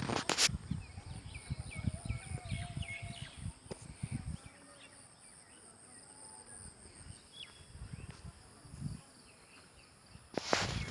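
Outdoor ambience: a steady high-pitched insect drone, with a bird's short chirps repeated over the first three seconds or so. Low rumbling noise runs through the first four seconds and comes back briefly near the end.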